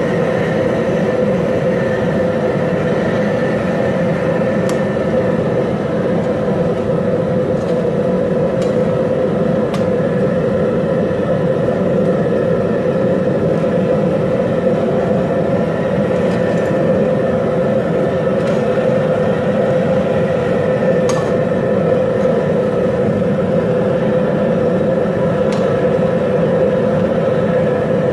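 Gas burner under a boiling crawfish pot running with a steady, even roar and hum. A few faint clicks come through now and then.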